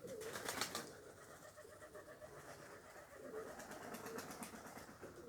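Domestic pigeons cooing softly, with a short flutter of wings about half a second in.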